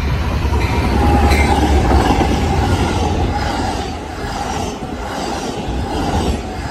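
Amtrak passenger train passing close at speed: the diesel locomotive's deep engine drone goes by in the first couple of seconds, then double-deck Superliner cars roll past with steady wheel-on-rail noise, a high steady ring from the wheels and rails, and regular clacks as the wheels cross rail joints.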